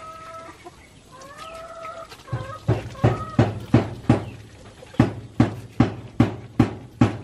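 A chicken gives two drawn-out rising calls. Then, from about two seconds in, comes a loud, steady run of knocks, about two or three a second, from a spatula working sticky rice in a metal wok.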